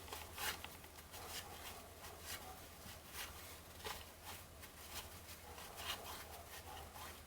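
Paper trading cards being flipped through one at a time, short soft card-on-card slides and flicks about one or two a second, over a faint steady low hum.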